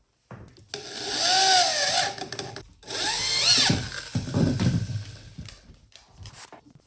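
Handheld power tool run in two bursts, the first about two seconds long and the second about a second, its motor whine rising and falling in pitch as it speeds up and slows down, followed by quieter rough working noise.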